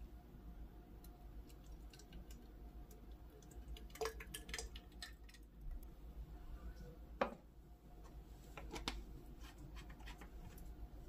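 Scattered light clicks and knocks of kitchen utensils and containers being handled, with a few sharper knocks about four, seven and nine seconds in.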